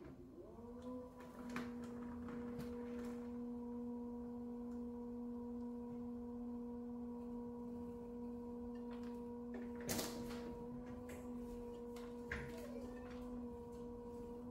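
Electric pottery wheel motor whining steadily as the wheel spins for trimming, rising in pitch about half a second in as it comes up to speed and then holding one steady tone. A sharp knock about ten seconds in.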